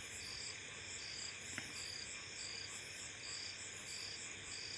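Faint, high-pitched, insect-like chirping in an even pulse, about one and a half chirps a second, over a steady hiss. A single faint click about one and a half seconds in.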